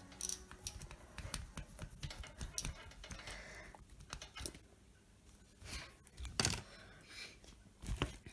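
Irregular light clicks and taps of small hard objects being handled, with a few louder knocks.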